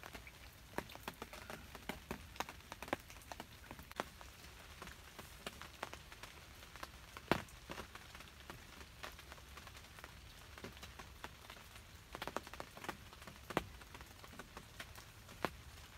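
Faint scattered clicks and taps at an uneven pace, with a sharper one about seven seconds in and a quick run of them near the end.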